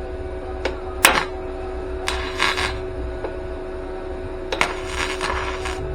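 A sharp metallic clank about a second in, then two short bursts of crackling flux-core wire-feed welding, the second a little over a second long, over a steady electrical hum.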